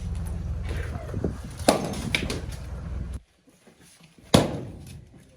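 Firewood being split by hand: a sharp chop about 1.7 s in and a louder one about 4.3 s in, each ringing out briefly. A low steady rumble underlies the first three seconds and cuts off abruptly.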